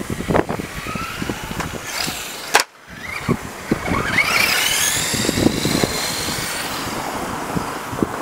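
Small electric motor of a remote-control vehicle whining, rising in pitch about halfway through, over gusty wind on the microphone. The sound cuts out for a moment about a third of the way in.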